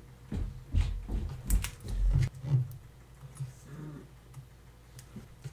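Steel tweezers clicking and tapping on a Seiko 6139 chronograph movement as small parts are put back in place, with a few dull handling knocks in the first two seconds or so and lighter scattered clicks after.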